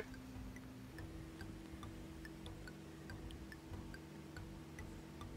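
Faint, even ticking, several ticks a second, over a low steady hum.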